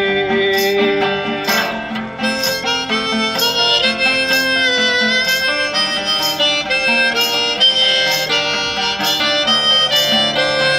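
Hohner Marine Band harmonica playing a solo over a strummed Cort baritone acoustic guitar tuned down a whole step. The harmonica holds one long note, then moves into a melody about a second and a half in, while the guitar keeps a steady strummed rhythm.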